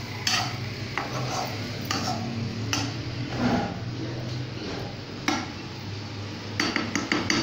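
Metal ladle stirring chicken frying in oil in a karahi, clinking and scraping against the pan every second or so, with a quick run of taps near the end. A steady low hum runs underneath.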